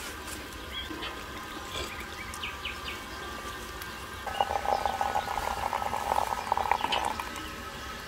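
Water running from the tap of a metal urn into a glass teapot full of leaves, a thin trickle at first that turns into a louder splashing pour about halfway through and eases off again near the end. Small birds chirp in the background.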